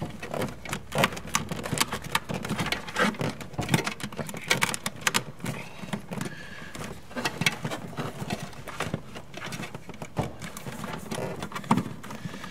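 Hands handling a hose clamp on a ribbed plastic vacuum hose against a plastic filter housing: a dense, irregular run of clicks, taps and scrapes.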